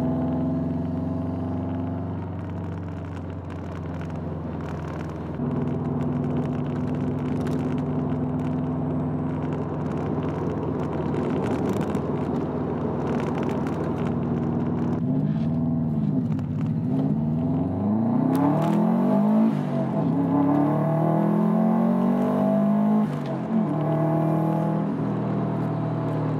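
Subaru WRX's turbocharged flat-four engine running steadily as the car drives, then from about halfway its revs rise and fall several times as the car accelerates.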